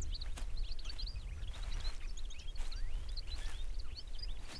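Small birds twittering steadily in many short, high chirps over a low outdoor rumble, with a few short scratches as an Ethiopian wolf paws at dry earth.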